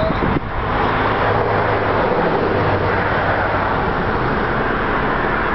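A car running: a steady low engine hum under a dense, even rushing noise.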